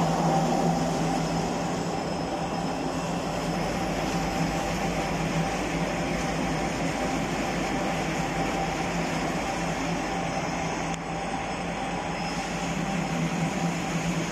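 Homogenizer mixer running: its motor and drive give a steady hum with a few constant tones, while the frame agitator churns and swishes the liquid in the stainless steel tank.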